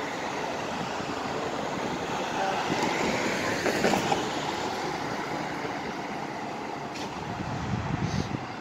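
City street traffic noise, steady, swelling slightly as a vehicle passes about three to four seconds in.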